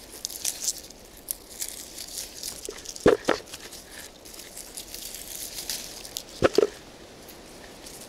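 Leaves and twigs rustling and crackling as cornelian cherries are picked by hand from overhead branches. Two sharp double knocks stand out, about three seconds in and again about six and a half seconds in.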